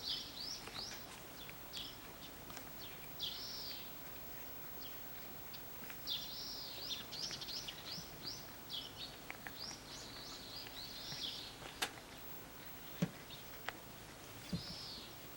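Small birds chirping: short arched high notes, singly and in quick runs, with a few faint clicks and a soft low thump near the end.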